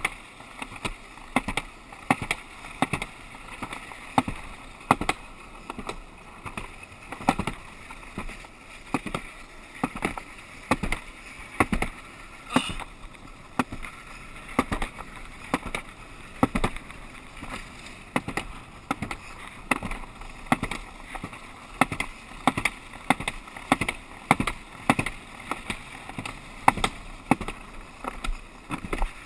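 Alpine slide sled running fast down its chute: a steady rumbling scrape broken by frequent irregular knocks and clatters.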